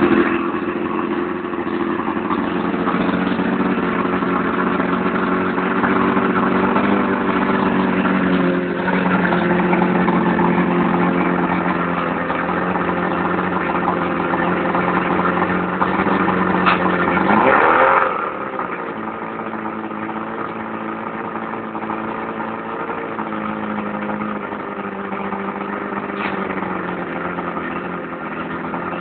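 Blue-band Mercury 50 hp two-stroke outboard running out of the water on a garden-hose flush, steady and loud. About two-thirds of the way in its pitch briefly rises, then it settles and runs a little quieter.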